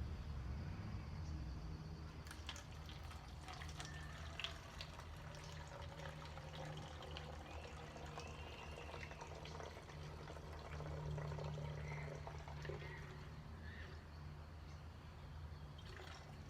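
Hydrogen peroxide being poured through a funnel into a bottle, a soft steady pour with a few light ticks, the first step in mixing elephant toothpaste. A low steady hum runs underneath.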